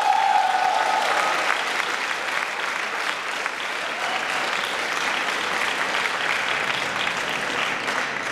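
Audience applauding steadily, with a voice held on one note over the clapping in the first second.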